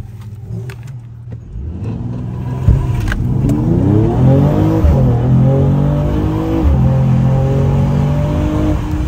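Mercedes-AMG E53's turbocharged 3.0-litre inline-six under hard acceleration after a Stage 1 tune, heard from inside the cabin. The revs climb from about two seconds in, drop at an upshift about five seconds in and again near seven seconds, then climb again.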